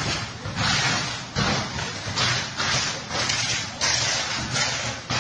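Hurricane-blown power lines arcing: a rapid run of sudden bursts of crackling hiss, about one every two-thirds of a second, over the steady rush of storm wind and rain.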